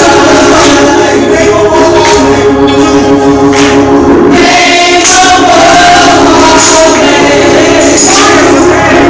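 Gospel choir of women singing loudly over sustained accompaniment, with recurring bright percussion hits.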